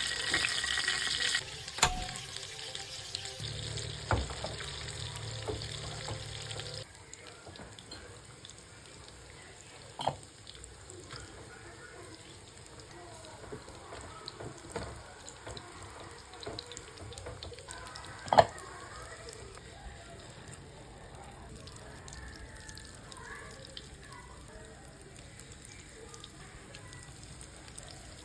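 Kitchen sounds: a water tap runs briefly and stops, then a few sharp knocks of utensils over a quiet background.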